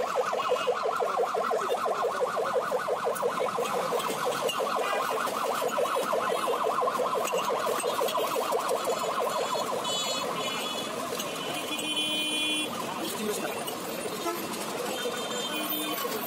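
Warbling electronic siren, its pitch wobbling rapidly up and down several times a second, a little quieter in the second half.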